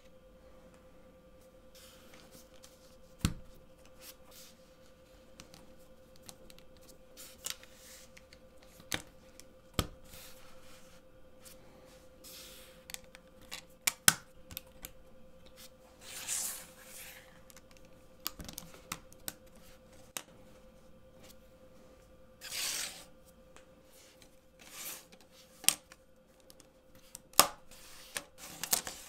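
LEGO plates being handled and hinged by hand: scattered sharp plastic clicks and taps, with a few short swishes of plastic rubbing and sliding against plastic, over a faint steady hum.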